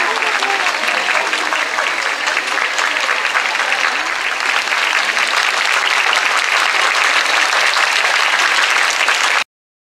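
A large crowd clapping steadily; the applause cuts off suddenly near the end.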